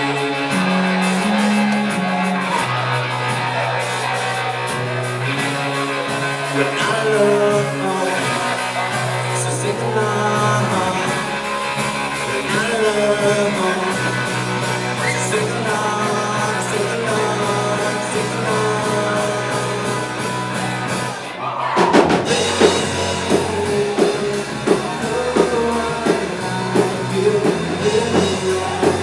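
Live Christian rock band playing in a large hall: a slower passage of held guitar and keyboard chords, then about 21 seconds in the drums come in and the full band plays on a steady beat.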